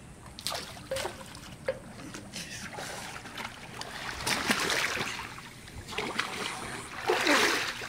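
Water splashing in a swimming pool as two people drop in and thrash about, in irregular loud bursts, the loudest near the end.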